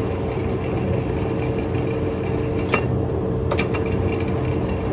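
Large Poreba engine lathe running under power with its carriage on rapid traverse: a steady motor hum with a constant whine, and a few sharp clicks about three seconds in.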